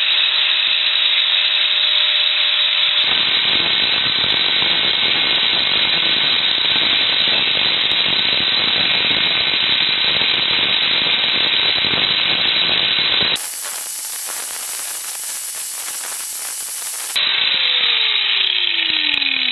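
Angle grinder with a thick grinding disc spinning up with a steady whine, then grinding along a 12 mm steel rod from about three seconds in to roughen its surface. Near the end it is switched off and winds down with a falling whine.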